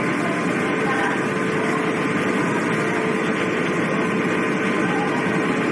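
Steady, even rumble of a car ferry's engines heard from the deck while the ship is under way, with a faint steady hum through it.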